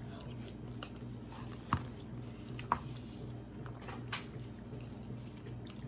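Eating sounds close to the microphone: soft chewing with scattered wet mouth clicks, two sharper ones a little under 2 and 3 seconds in, over a steady low hum.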